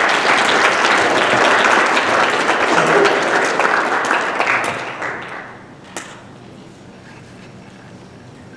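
Church congregation applauding, dying away after about five seconds; a single click follows about six seconds in.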